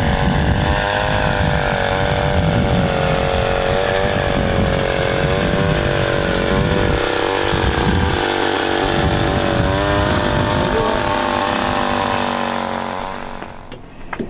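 Power ice auger drilling a hole through lake ice, its motor running with a steady whine that wavers slightly as the bit bites, then dying away shortly before the end.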